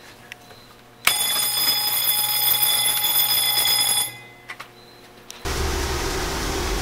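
A boiler-room alarm sounds steadily for about three seconds, then cuts off. About five and a half seconds in, a loud steady rush starts, consistent with the burner's combustion-air blower motor coming on during a cold start of a gas-fired Scotch marine boiler.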